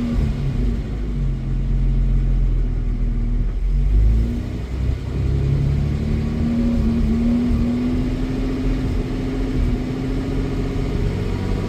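Jaguar XJ-S 3.6's straight-six engine being brought slowly up from about 1,000 toward 2,000 rpm, its note dipping about four seconds in and then rising slowly. It really struggles as the demand increases, the sign of a misfire that shows under 2,000 rpm.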